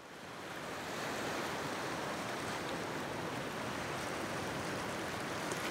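Ocean surf: a steady wash of waves that fades in over about the first second.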